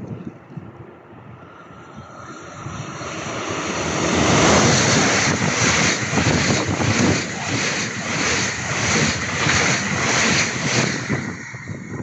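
A train passing at speed: it grows louder over the first few seconds, runs loud with a regular beat from the wheels for several seconds, then falls away near the end.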